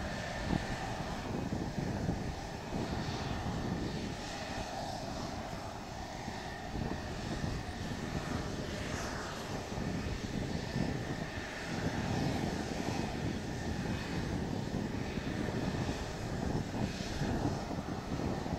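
Mitsubishi F-2B fighter's F110 turbofan running at low taxi power as the jet rolls past: a steady rumble and hiss with a faint high whine.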